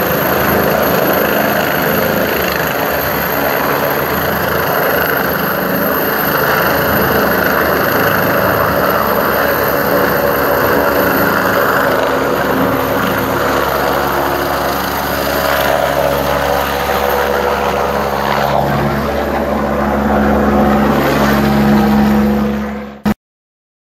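Helicopter hovering low over a ship's deck: steady, loud rotor and engine noise that fades quickly and cuts off near the end.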